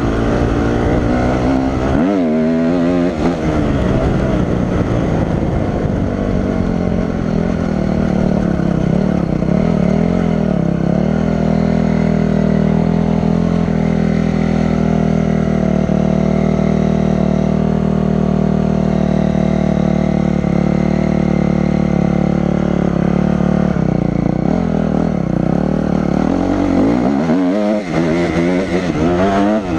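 Honda CRF250 four-stroke single-cylinder dirt bike engine through a DEP System 7 exhaust. It revs up and down during the first few seconds, settles into a steady, even note through the middle, then revs up and down again near the end.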